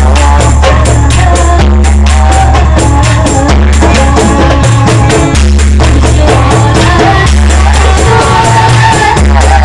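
Marawis and qasidah ensemble performing: women singing into microphones over a steady beat of marawis hand drums, the large hajir drum and jingling percussion. It is played loud through a PA, with heavy low bass.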